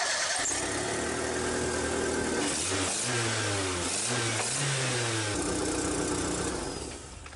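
Mitsubishi Mirage 4G15 1.5-litre four-cylinder engine running at idle, blipped up twice at the throttle by hand about three and four and a half seconds in, then settling back to idle and fading away near the end.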